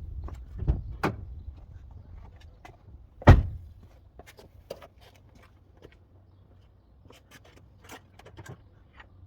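Scattered clicks and knocks of tools and brake parts being handled during a brake pad change, with one loud knock about three seconds in and lighter clicks after it.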